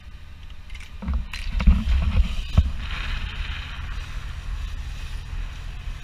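Wind buffeting the microphone and water rushing along a yacht's hull, with a cluster of camera-handling thumps and knocks about a second in.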